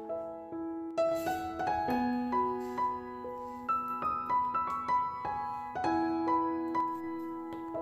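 Piano music: gentle notes and chords struck about once or twice a second and left to ring.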